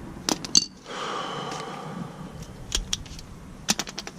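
Scattered sharp metallic clicks and clinks of hand tools at work on a brake caliper, with a quick run of clicks near the end.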